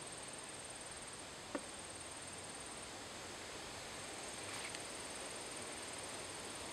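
Faint outdoor ambience with a steady, high-pitched insect trill that pauses now and then, and a single faint click about one and a half seconds in.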